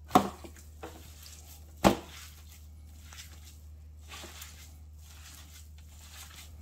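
A gloved hand mixing pulled pork in a disposable aluminium foil tray: soft squishing and rustling of the shredded meat, with two sharp knocks, one right at the start and one about two seconds in.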